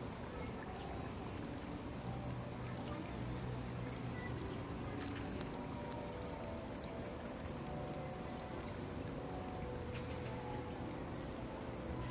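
Steady insect chorus: several high, even buzzing tones running without a break, over a low steady hum.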